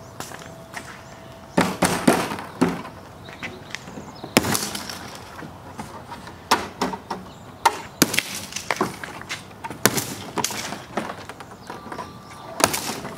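Black plastic packing straps on a large cardboard shipping crate being cut and pulled free. It is a string of irregular sharp snaps and knocks, about ten in all.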